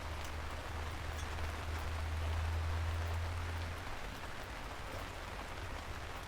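Steady rain falling, with scattered sharper drop ticks over a steady hiss. A low rumble underneath dies away a little before four seconds in.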